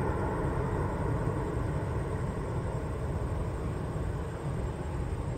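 Airplane engines heard from the ground as a steady, distant rumble that slowly fades.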